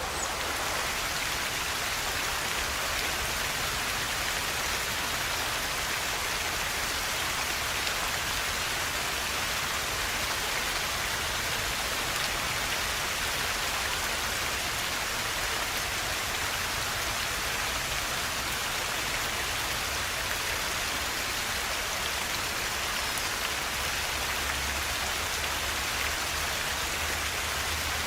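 Steady rush of a flowing river, an even hiss of water.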